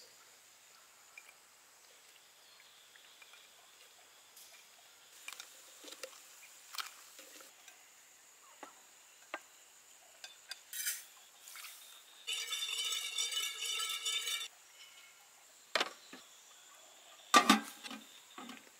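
Scattered light clinks and taps of dishes, bowls and cooking pots being handled, with a louder knock near the end. A pitched trill sounds for about two seconds in the middle.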